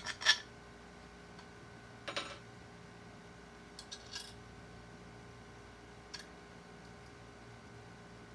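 A flat aluminium plate clinking and tapping against a bicycle's frame and rear rack as it is held up and positioned: a few separate metallic knocks, the loudest just after the start, others about two, four and six seconds in, over a faint steady hum.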